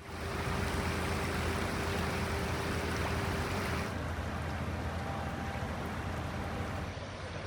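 Muddy floodwater rushing in a steady torrent, its sound changing abruptly twice, about four and seven seconds in, with a faint steady hum under it for the first few seconds.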